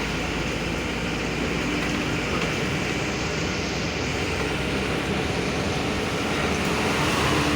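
Steady road and engine noise of a moving vehicle, an even rushing sound with a low hum underneath.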